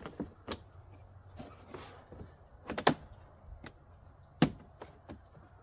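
Screen snapping into a plastic lawn-tractor bagger cover: a few sharp plastic clicks, the two loudest about three seconds in and again about a second and a half later.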